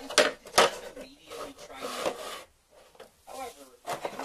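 Plastic fingerboard ramp and rail pieces being handled and set down on a wooden table: sharp clicks and knocks, the loudest two in the first second, with pieces scraping and rubbing against the wood between them.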